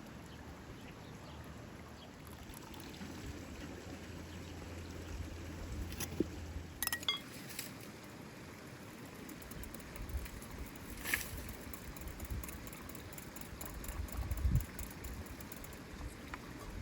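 Water trickling steadily, with a few sharp clicks about seven and eleven seconds in.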